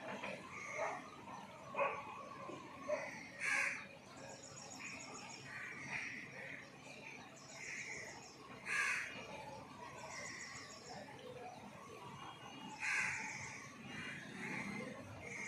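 Birds calling outdoors: three loud, harsh caws a few seconds apart, with fainter high chirping between them.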